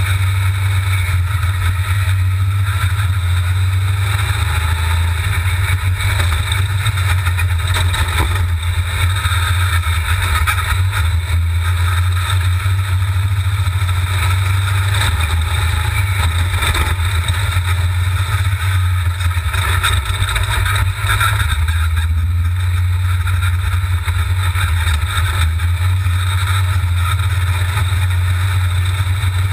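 V8 sand rail engine running steadily while driving over dunes, heard from a camera mounted on the buggy itself.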